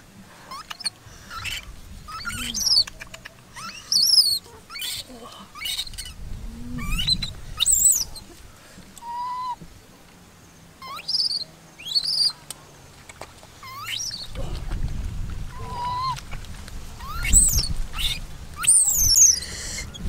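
Birds chirping in many short, quick calls that sweep up and down in pitch, over stretches of low rumbling and a few knocks.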